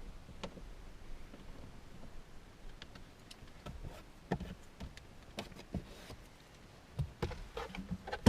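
Scattered light clicks and knocks at an irregular pace, becoming more frequent after about three seconds, with a louder knock near the end.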